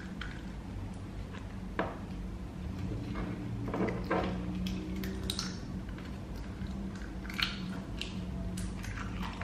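Hands squishing and working a thick, heavy bead-filled slime, with small scattered clicks and crackles as the beads shift.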